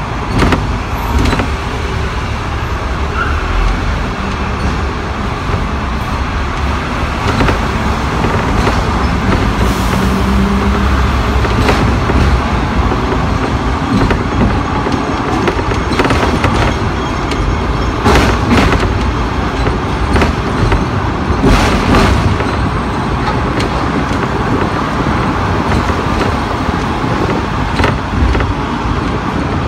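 Hong Kong double-decker electric tram running along street track, heard from the upper deck: a steady rumble of wheels on rails with scattered sharp clacks, several of them bunched together past the middle.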